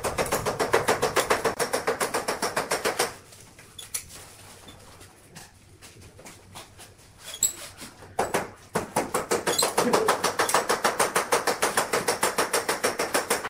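Caulking gun clicking rapidly, several clicks a second, as sealant is run along the back edge of a countertop. The clicking stops about three seconds in, with a few single clicks after, and starts again at a similar pace about nine seconds in.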